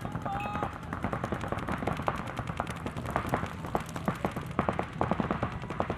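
Paintball markers firing: rapid, irregular pops from several guns overlapping, several shots a second.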